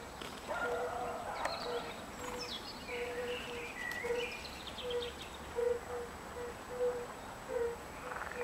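European fire-bellied toads (Bombina bombina) calling from the pond: short, soft notes at one low pitch, repeating about one and a half times a second. Birds chirp and sing over them.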